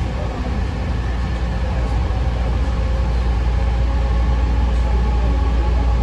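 AirTrain JFK people-mover car running along its elevated guideway, heard from inside the car: a steady low rumble with a faint steady whine above it, growing gradually louder.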